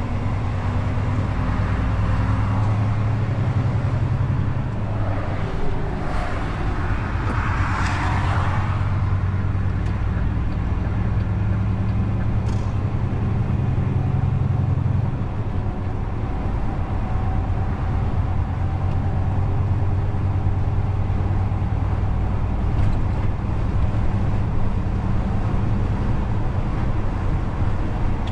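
DAF XF truck's diesel engine running steadily under way, a low droning hum, with a brief swell of rushing noise about eight seconds in.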